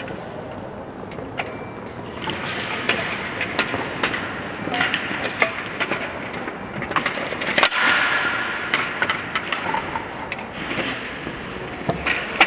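Long metal strips being handled on a hard stone floor: irregular sharp clicks and knocks over a steady rustling, with a louder knock at the very end.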